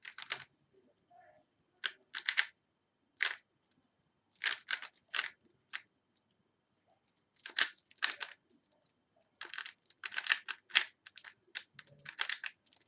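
A 3x3 Rubik's cube being turned fast during a timed solve, at the stage of finishing the second layer. The plastic layers click and clack in quick bursts of turns, with short pauses between them, the longest about a second and a half near the middle.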